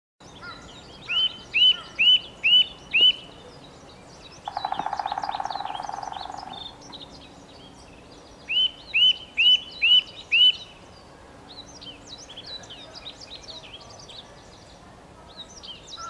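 Birdsong: a chorus of high chirps throughout, over which one bird sings a loud phrase of five ringing, evenly spaced notes, given twice. Between the two phrases a lower buzzing trill lasts about two seconds.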